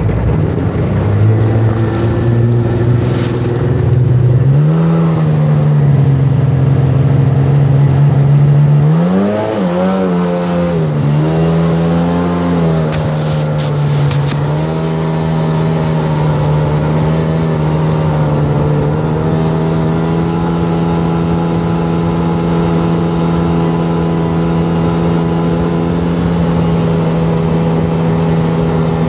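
Sea-Doo personal watercraft engine running hard on the water. It picks up about a second in, revs up and down several times in the first twelve seconds, then settles to a steady note that steps up slightly later on.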